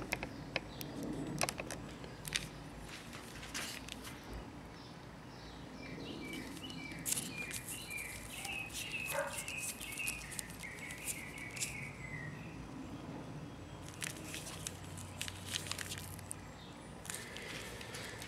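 Clicks and rustles of a plastic power adapter and its cable being handled and unwound, with a bird chirping a quick run of short, high notes in the background midway.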